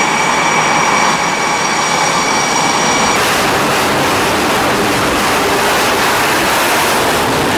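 Boeing F/A-18 Super Hornet jet engines (General Electric F414 turbofans). For about the first three seconds they run with a steady high whine. Then the sound switches to a loud, full hiss of engines at afterburner thrust, as for a catapult launch off a carrier deck.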